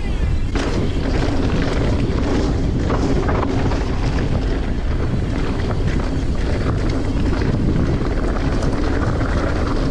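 Full-suspension mountain bike, a Pivot Switchblade, descending a rough dirt trail at speed: a steady rush of wind on the microphone over tyre roar, with frequent short knocks and rattles from the bike over bumps.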